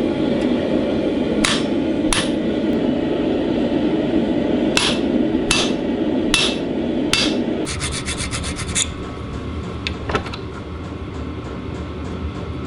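Steady abrasive rubbing on a steel blade, broken by several sharp clicks. About eight seconds in, a quick run of ticks sounds and the rubbing gives way to a quieter, lower steady noise.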